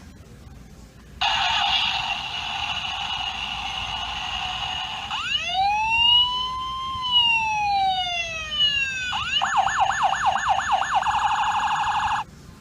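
Tonka Mini sheriff sedan toy's electronic siren sound effect: a steady buzzing tone, then a slow rising-and-falling siren wail, then a fast warbling yelp. It cuts off suddenly near the end.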